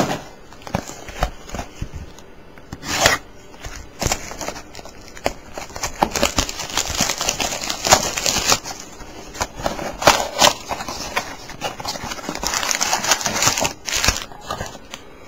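Cellophane shrink-wrap crinkling and tearing as a small trading-card box is unwrapped by hand, with the cardboard box and foil card packs handled: an irregular run of crackles and clicks.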